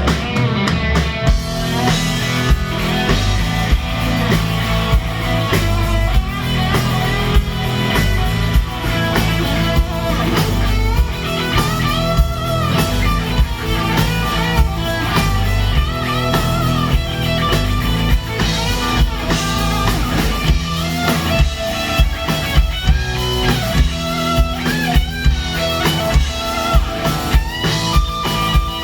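Rock band playing an instrumental section with no vocals: distorted lead guitar over drum kit and bass.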